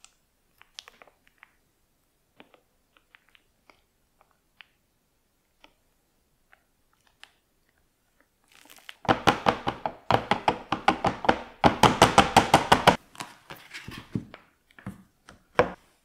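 Faint wet clicks of thick mousse squeezed from a piping bag into a silicone cake mould, then a loud, rapid run of knocks, about seven a second, for about four seconds: the filled mould being tapped against the plastic cutting board to level the mousse and knock out air bubbles. A few single knocks follow near the end.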